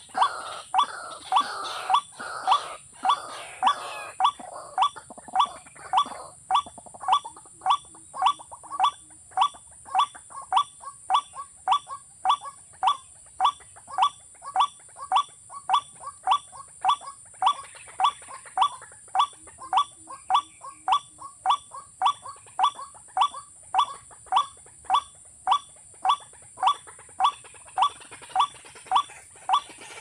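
Recorded watercock call played on a loop from a small speaker as a trap lure: one short note, repeated very evenly about twice a second.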